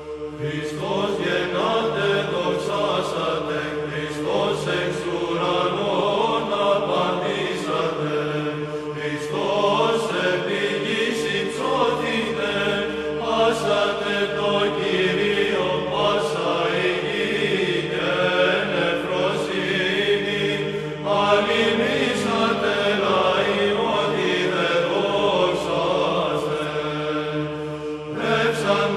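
A Byzantine church choir chanting in Greek: a melody moving in phrases over a steady held drone note (the ison).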